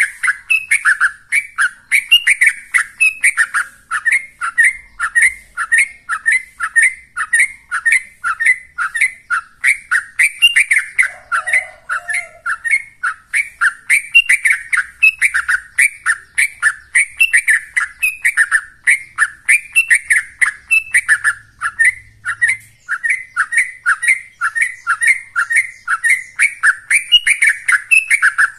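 Yellow-vented bulbul (trucukan) singing in the rapid 'ropel' style: an unbroken string of short chirping notes, three or four a second, with no pause.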